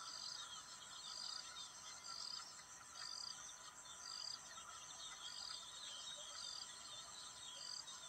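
Outdoor nature ambience: a short high chirp repeating about once a second, with faint falling whistles between and a steady high hiss underneath.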